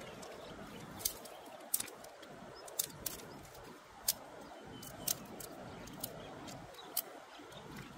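Dry twigs snapping as they are broken by hand: about eight sharp cracks, roughly a second apart, over steady background noise.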